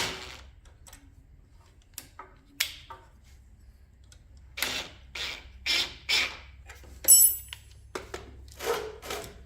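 Hands-on work on a retractable workbench caster: a knock, a few clicks, a run of short scraping strokes, and a sharp ringing metal clink about seven seconds in, as the caster is worked and starts lifting the loaded bench.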